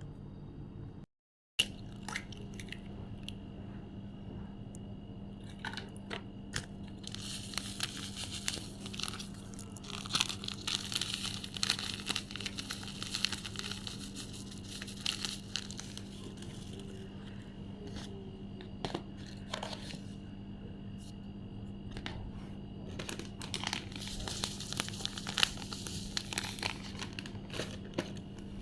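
Food-preparation handling sounds: scattered clicks and knocks of utensils and containers, with longer stretches of rustling, scraping noise, over a steady low hum.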